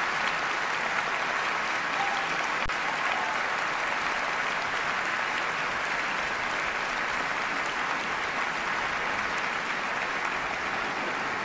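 A large concert-hall audience applauding steadily.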